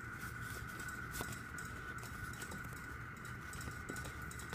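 Faint handling of a folded glossy paper insert as it is unfolded: soft rustles and a couple of light taps, over a steady faint high whine in the background.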